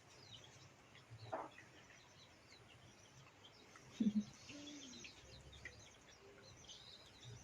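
Faint chirping of small birds scattered throughout, with a short low sound about four seconds in.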